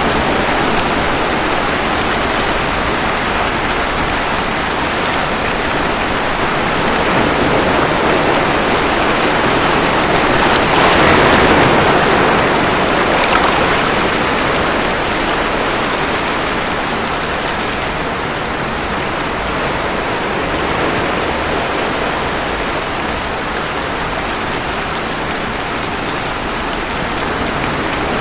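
Steady rain falling, mixed with ocean waves washing ashore. The sound swells louder about eleven seconds in, as a wave comes in, then eases back.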